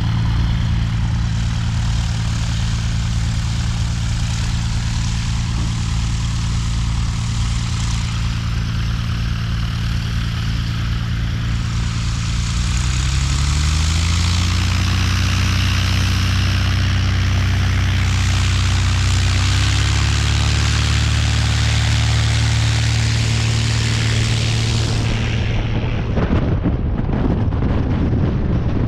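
1959 Cessna 172's Continental O-300 six-cylinder engine and propeller running steadily, then rising in pitch about halfway through and stepping up again a few seconds later. Near the end the engine gives way to a rushing noise.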